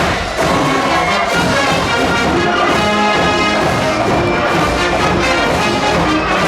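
Large high-school wind band playing live brass-heavy music, with trumpets and trombones in full chords echoing in an indoor arena.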